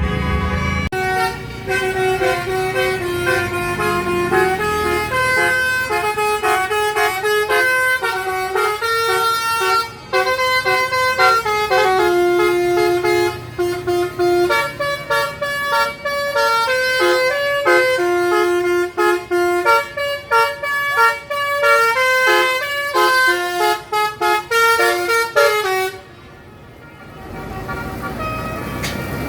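A bus's basuri 'telolet' multi-tone horn playing a long melody of quick, stepping notes. The melody cuts off near the end, and a vehicle's engine noise rises after it.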